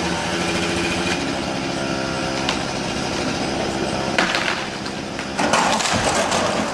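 Chainsaw engine running steadily. Loud cracking and crashing comes about four seconds in and again for about a second from five and a half seconds in.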